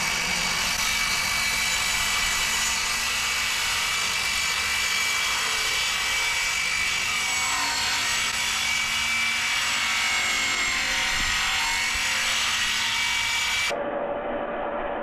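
Milwaukee cordless circular saw running and cutting through a PVC sheet, a steady high-pitched whine. Near the end the sound drops abruptly to a duller hum.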